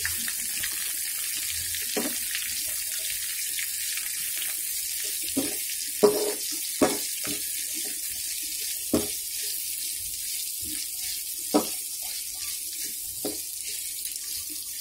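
Sliced onions frying in hot oil with a steady sizzle, while a metal spoon stirs them, knocking and scraping against the pan about seven times.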